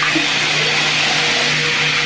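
Bathroom tap water running at strong pressure: a loud, steady rushing hiss with a low hum underneath.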